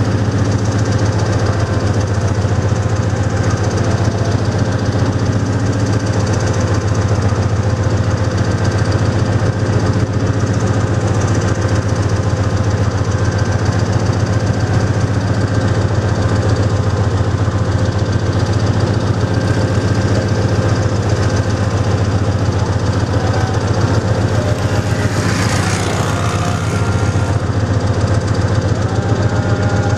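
Hitachi diesel-electric locomotive's engine running steadily at idle, a loud low rapid throb with a steady hum over it. A short burst of hiss comes near the end.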